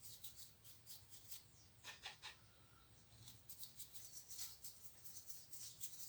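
Faint, quick scratchy rubbing strokes, irregular and repeated: a rag wiping grease off a steering wheel's plastic rim with acetone, over a low steady room hum.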